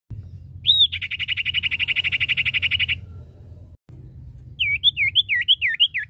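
Common iora calling: a short rising-and-falling whistle, then a rapid, even trill for about two seconds. After a short break comes a run of six or seven swooping whistled notes, each dipping and rising, about three a second.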